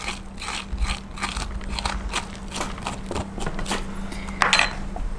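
A metal spoon scraping the seeds out of a halved green papaya in short, quick strokes, about three a second, with a sharper knock a little over four seconds in.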